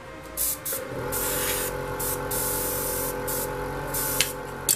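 Airbrush spraying acrylic flesh-tone paint in several short hissing bursts and one longer one, over a steady motor hum that starts a little under a second in.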